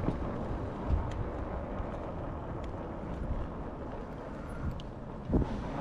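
Wind buffeting the microphone over the tyre noise of a RadRover fat-tire electric bike rolling slowly across pavement, with one low thump near the end.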